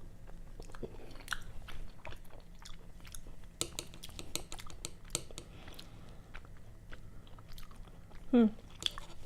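Close-miked chewing of sashimi, with many small wet mouth clicks and smacks. A brief voiced sound comes near the end.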